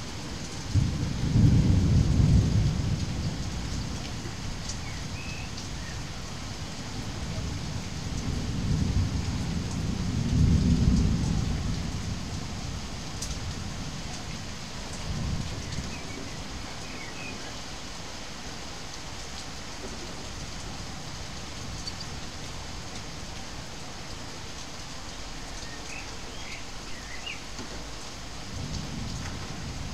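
Steady rain falling, with low rolls of thunder: the loudest about a second in, another building around eight to twelve seconds in, and fainter ones later.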